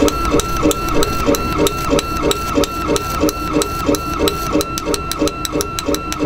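K40 CO2 laser cutter's stepper motors driving the laser head back and forth as it raster-engraves: a pitched motor whine broken by a click at each reversal, repeating about three times a second.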